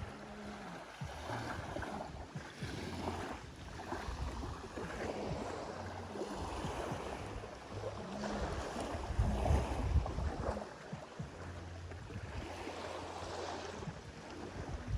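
Wind rumbling on the microphone in uneven gusts over a steady rushing noise, strongest about two-thirds of the way through.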